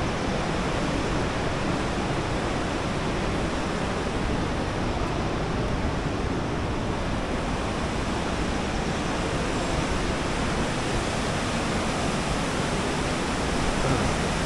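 Steady, unchanging rushing noise spread evenly from low to high pitches, like outdoor wind or rushing water.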